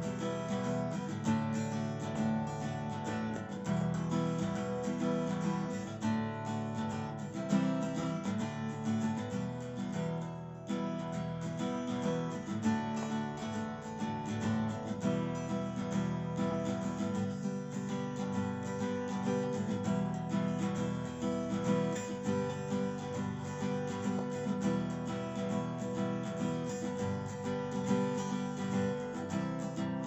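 Background music: strummed acoustic guitar playing an instrumental passage with no singing.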